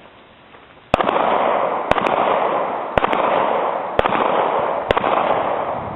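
A 9mm Glock 26 pistol fired five times at a slow, steady pace, about one shot a second, starting about a second in. Each shot is followed by a loud lingering echo.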